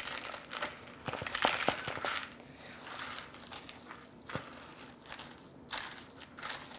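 Lettuce and croutons being tossed and stirred with a utensil in a salad bowl: irregular crunching and rustling, with a few sharp clicks, busiest in the first couple of seconds.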